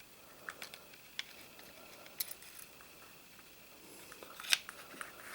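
Scattered small metallic clicks and taps from the recoil spring and guide of a Sig Sauer Mosquito pistol being worked into the slide block by hand. The loudest click comes about four and a half seconds in.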